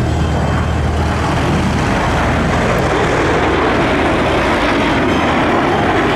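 Jet noise from a three-ship formation flyby: a Gulfstream III business jet flanked by F-15 and F/A-18 fighters. It is a broad rushing sound that swells from about a second in as the formation passes close.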